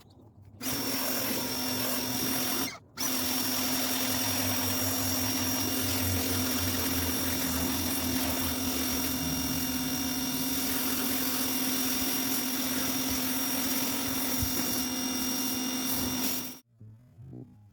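Ryobi electric pressure washer's motor and pump running with a steady whine over a hiss. It cuts out briefly near the start, restarts, and stops suddenly near the end.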